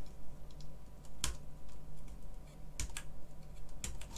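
Small plastic clicks and taps as hands work along a stripped BBC Master keyboard's circuit board, with three sharper clicks spaced roughly a second apart.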